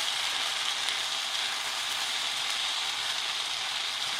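Yakisoba noodles in okonomi sauce sizzling steadily in a hot frying pan.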